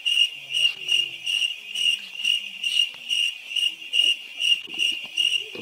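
A cricket chirping, one steady high note pulsing evenly about two to three times a second.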